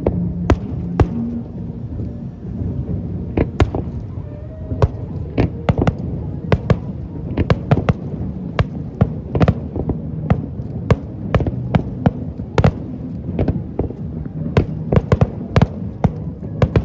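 Aerial fireworks shells bursting: a rapid, irregular series of sharp bangs, several a second at the busiest moments, over a continuous low rumble.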